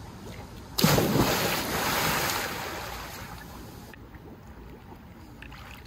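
A sudden loud splash into pool water about a second in, then water churning and settling, fading over the next few seconds.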